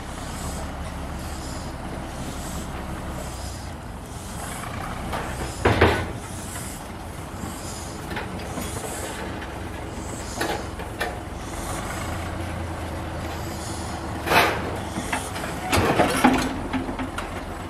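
Narrow-gauge train of a small steam locomotive and a yellow diesel locomotive moving slowly along the track: a steady low engine rumble, with a few short, loud sounds about six, fourteen and sixteen seconds in.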